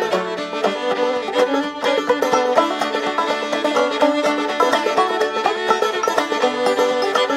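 Instrumental bluegrass-style music with fast picked banjo notes and fiddle, between sung verses of a song.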